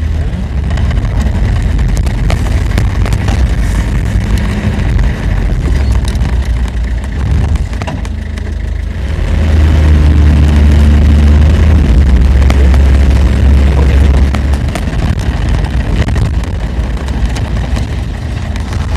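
London black cab's engine running as the cab drives, heard from inside the cab with road and tyre noise. The engine grows louder and steadier about nine seconds in, as if pulling harder, and eases off again about five seconds later.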